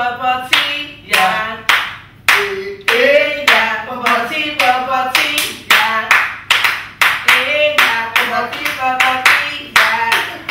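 Hands clapping in a steady rhythm, about two to three claps a second, with a voice singing along.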